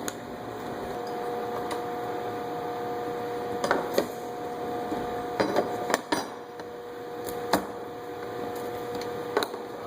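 Scattered light knocks and clicks from handling the new fuel pump assembly and its lock ring as it is seated in the tank, over a steady background hum.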